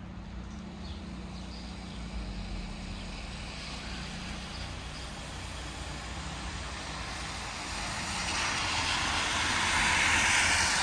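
Car driving past on a wet road, the hiss of its tyres on the water swelling over the last few seconds and loudest near the end, over a steady low hum.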